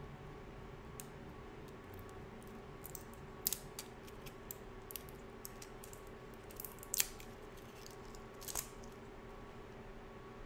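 Small plastic packaging of a lip balm being handled and opened: scattered light clicks and crackles, with a few sharper snaps about a third of the way in, around two-thirds and again a little later, over a faint steady hum.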